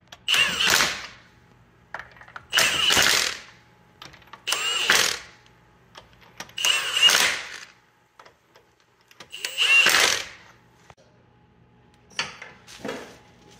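Cordless impact wrench driving lug nuts onto a wheel: five loud bursts of about a second each, one per nut, a couple of seconds apart. A few softer knocks follow near the end.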